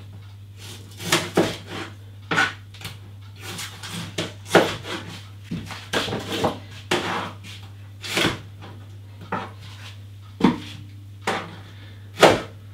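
Kitchen knife cutting mango on a plastic cutting board: irregular short knocks as the blade meets the board, about one every half second to a second, with louder knocks a little after eight seconds and near the end.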